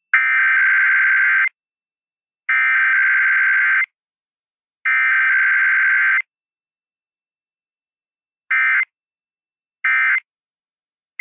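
Emergency Alert System SAME digital data bursts. Three long bursts of about a second and a half each carry the message header. About eight seconds in, three short bursts carry the end-of-message code. No attention tone or spoken message comes between them, as in a test transmission.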